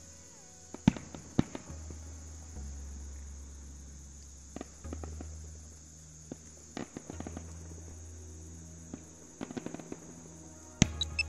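Fireworks going off: scattered sharp bangs and crackles, the loudest about a second in and near the end, with a quick cluster just before the end. Underneath them runs a steady high-pitched background and a low rumble.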